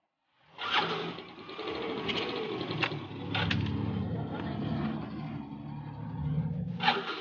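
Yamaha Ray Z scooter's single-cylinder engine turned over on its electric self-starter and running, starting abruptly about half a second in, with a few sharp clicks, and cutting off near the end. The starter is now turning the engine after repair of a fault where it could not crank it.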